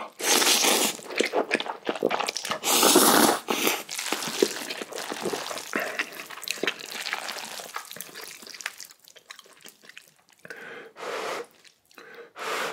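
Slurping and chewing instant black-bean-sauce noodles (Chapagetti) up close. There are two long slurps in the first few seconds, then several seconds of wet, clicky chewing, and shorter slurps near the end.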